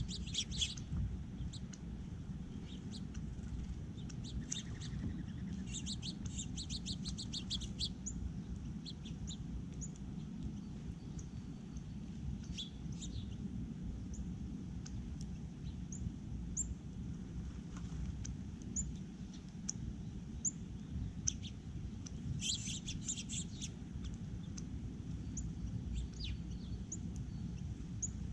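Small birds chirping at a feeder: scattered short, high chirps, with a quick run of notes about a quarter of the way in and again about three-quarters of the way in, over a steady low rumble.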